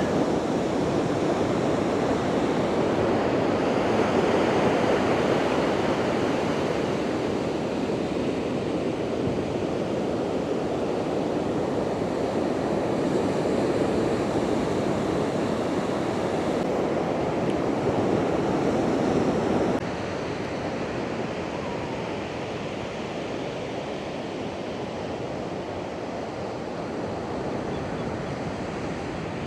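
Heavy Atlantic surf breaking and crashing against rocks: a continuous rushing of water that swells about four seconds in, then drops suddenly to a quieter level about two-thirds of the way through.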